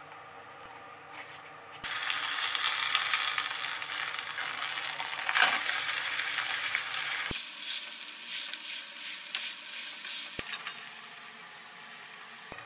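Shredded potato sizzling in oil in a frying pan, starting suddenly about two seconds in while it is turned over and pressed flat with a spatula. The sizzling turns more crackly about seven seconds in and drops to a quiet hiss about ten seconds in.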